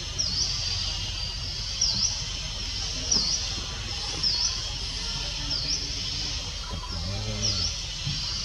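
Tropical forest ambience: a high, sharp chirp repeats about once a second over a steady high hiss and a low rumble. A brief, low pitched call comes about seven seconds in.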